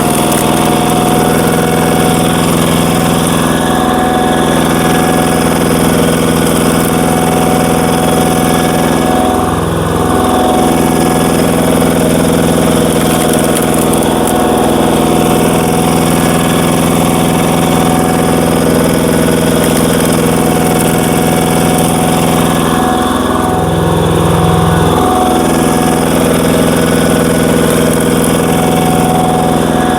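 Power tiller's single-cylinder diesel engine running steadily, driving a screw log splitter. Twice the engine note dips briefly and then recovers.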